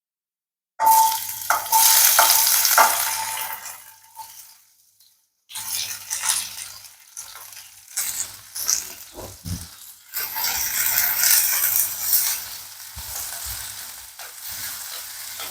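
Sliced onions dropped into hot oil in a pan: a sudden loud sizzle about a second in that dies down over a few seconds. After a brief break the onions keep sizzling as they are stirred, with scraping and tapping against the pan.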